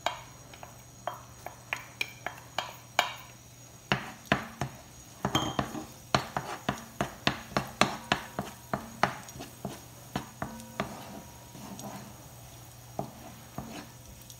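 Wooden spoon knocking and scraping against a nonstick frying pan while chopped garlic is stirred in oil: a string of sharp taps, quickest and loudest between about four and ten seconds in.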